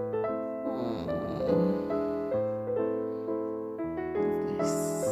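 Background piano music, a melody of single notes changing about every half second, with a brief hiss shortly before the end.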